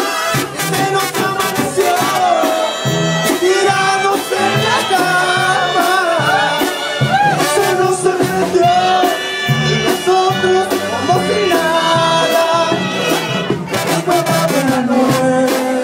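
Live banda music: male voices singing over trombones, tuba and accordion, with a steady drum beat.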